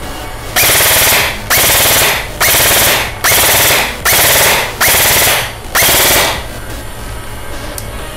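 Lancer Tactical LT-25G Gen 2 Interceptor airsoft electric rifle (AEG) test-firing in six short bursts of rapid fire, each under a second. Each burst opens with a brief rising whine as the motor spins up.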